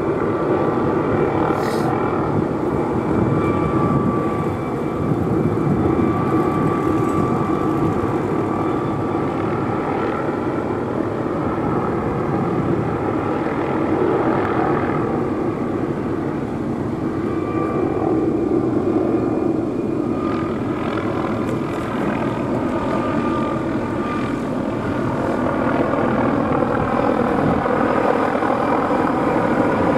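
McDonnell Douglas MD520N NOTAR helicopter hovering close by: steady main-rotor and turbine noise with a thin, steady whine above it.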